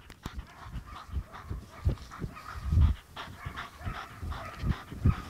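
Irregular soft thumps of trotting footsteps on grass, with a German Shepherd heeling close alongside, breathing hard and giving small whines.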